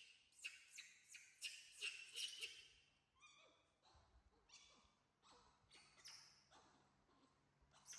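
Faint lip smacking by an animal: quick wet smacks about three a second, then a brief squeaky call about three seconds in, followed by softer, slower smacks.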